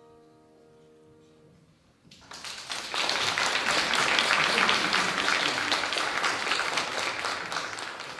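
The final piano chord of the song dies away, then audience applause starts about two seconds in, builds to full strength and begins to fade near the end.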